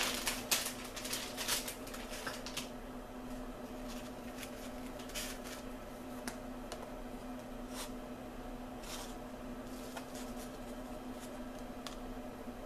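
Hands handling sticky, sugar-coated Peeps marshmallows: soft rustling and squishing, busiest for the first couple of seconds, then a few scattered light clicks, over a steady low hum.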